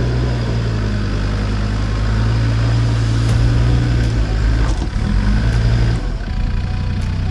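Off-road 4x4 with an automatic gearbox pulling up a rocky lane under steady throttle. The engine note drops back toward idle about six seconds in, and a few light knocks come in the later part.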